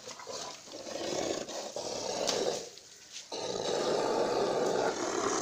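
Sacrificial bull lying on the ground after its throat has been cut, making two long, rough, rasping groans; the second starts suddenly about three seconds in.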